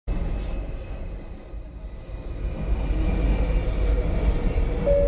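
Athens metro train running, heard from inside the carriage: a low rumble that grows louder about halfway through, with a faint steady whine above it. Near the end the first tone of the on-board announcement chime sounds.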